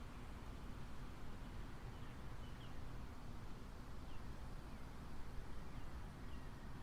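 Mower engine running steadily as a faint low hum, with a few faint high bird chirps over it.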